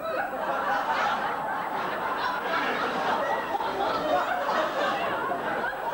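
Live audience laughing at a stand-up punchline. A burst of crowd laughter breaks out suddenly and carries on at a steady level.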